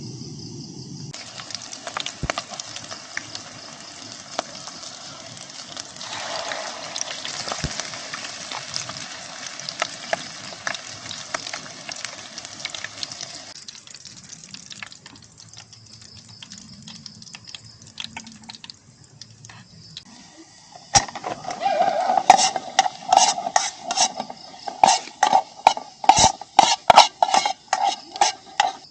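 Camp cooking sounds: a steady hissing sizzle for the first half, then a quieter stretch with insects chirping. Near the end comes a quick run of sharp clinks and knocks of utensils against pots and dishes.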